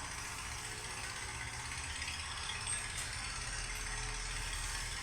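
Farm tractor's diesel engine running steadily with a rattling clatter.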